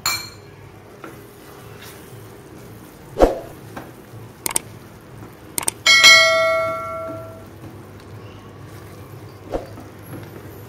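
A wooden spatula stirring and knocking against a stainless steel pan. About halfway through come a couple of sharp clicks and then a bell chime that rings out and fades over about a second and a half: the notification-bell sound effect of a subscribe-button animation.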